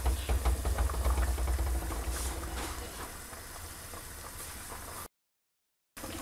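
A pot of thick tomato-based chorba soup boiling, with a dense, steady popping of bubbles. A low rumble sits under it for the first couple of seconds, and the sound drops out completely for under a second near the end.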